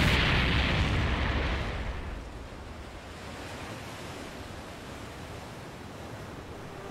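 Rumble of an explosion sound effect dying away over the first two seconds, then a steady, even noise like wind and surf ambience.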